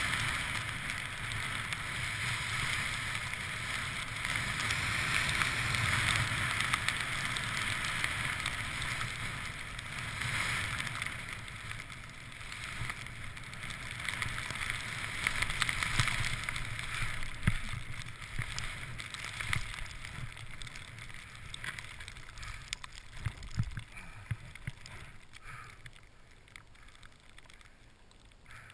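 Skis hissing through deep powder snow, with wind rumbling on the camera microphone; the hiss swells and eases over the run and grows quieter near the end.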